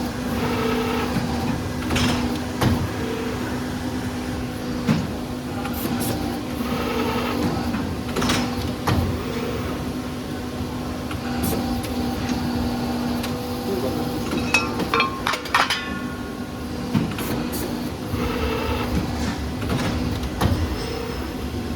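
CNC tube bending machine running through its cycle: a steady motor hum with irregular clunks and clicks from its clamping, feed and bending mechanism, and a short high squeal of metal about 15 seconds in.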